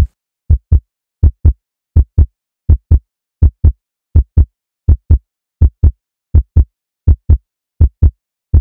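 Heartbeat sound effect: steady paired lub-dub thumps, about 80 beats a minute.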